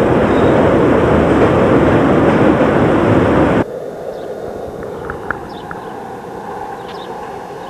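Steady running noise inside a PCC streetcar under way: motors and steel wheels on the rails. About three and a half seconds in it cuts off abruptly to a much quieter outdoor background with a few short high chirps.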